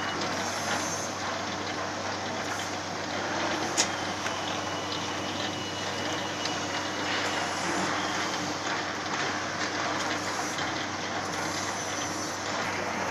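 MG70-8 dough divider rounder running steadily: a constant motor hum under the noise of its rounding rollers. One sharp click sounds about four seconds in.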